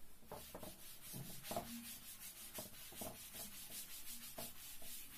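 A chalkboard being wiped clean by hand, a series of quick rubbing strokes across the board.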